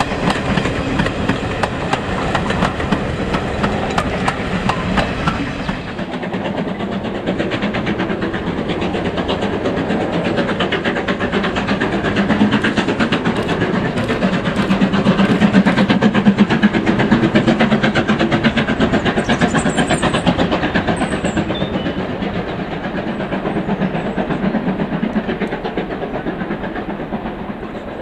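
Steam train passing, hauled by a USA S160 2-8-0 steam locomotive: first the coaches rolling by on the rails, then, after an abrupt change about six seconds in, the locomotive working with steady exhaust beats. The sound grows louder to a peak about halfway through and fades near the end.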